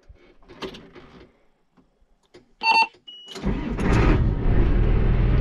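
A tractor cab's electronic warning beep sounds once about two and a half seconds in. A second later the tractor's diesel engine cranks, catches and settles into a steady idle. Before the beep there are a few faint clicks from the controls.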